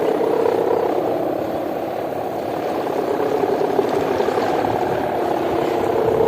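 Kite hummer (sendaren) on a big benteng kite droning in the wind: a steady, rough, buzzing hum of the ngorok ('snoring') kind. It dips slightly in the middle and swells again near the end.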